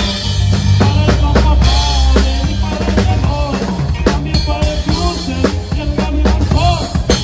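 Live corrido band playing, with the drum kit loud and close: rapid snare, rimshot and bass drum hits over a steady low bass line and short melodic phrases.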